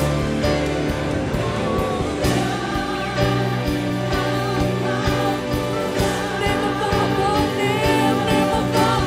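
Live church worship music: a band led by keyboards, with drums, accompanying sung voices.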